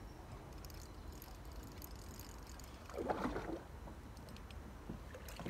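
Water around a kayak with a steady low rumble, and one brief splash at the surface about three seconds in.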